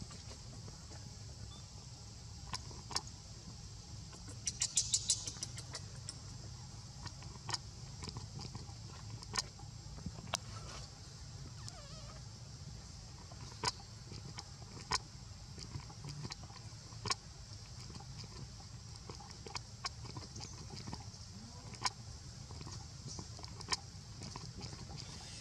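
Outdoor ambience: a steady high hiss over a low rumble, with scattered sharp clicks every second or two and a quick flurry of clicks about five seconds in.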